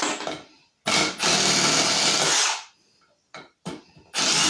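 Milwaukee Fuel Surge hydraulic impact driver running in bursts: a short burst, then a longer run of nearly two seconds, then another short burst near the end, with a few light clicks between.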